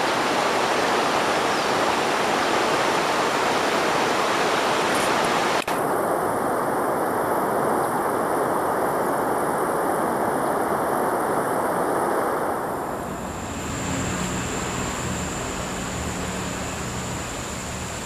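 Steady rush of a fast-flowing jungle river. About two-thirds of the way in the rush softens, and a thin steady high tone joins it.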